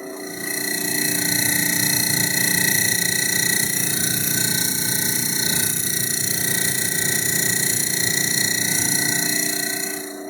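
GE refrigerator making a loud, steady mechanical noise: several steady tones, from low to very high, over a hiss. It swells up within the first second and cuts off abruptly at the end. This is the abnormal running noise the fridge is being checked for.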